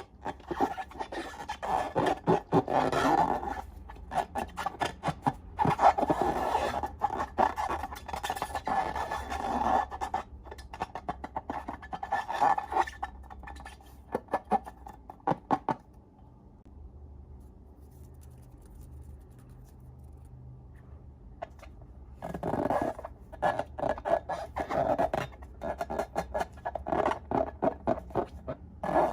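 Slime being squeezed and worked by hand, making dense sticky crackling and clicking, in two long spells with a quieter pause of several seconds between them.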